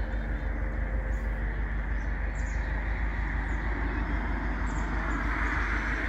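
Steady road traffic rumble, swelling toward the end as a vehicle goes by.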